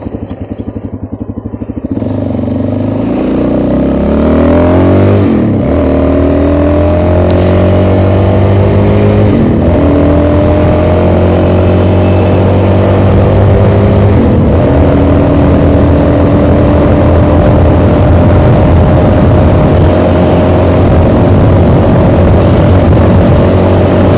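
Motorcycle engine pulling away and accelerating. Its pitch climbs and drops sharply three times, about 5, 9 and 14 seconds in, as it shifts up through the gears, then holds almost steady at cruising speed. A rush of wind noise runs underneath.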